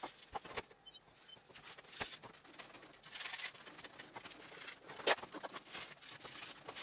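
Hands kneading yeast dough in a metal pan: soft pats and sticky squelches with scattered knocks, one sharp knock about five seconds in.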